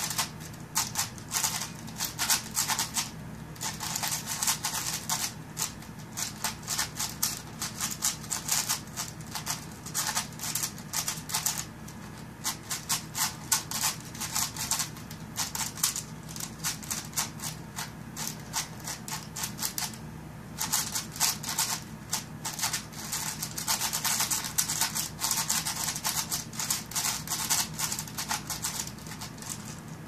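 A 7x7 plastic speedcube being turned rapidly by hand: a dense, continuous stream of quick clicks and rattles from its layers sliding, with a few brief pauses.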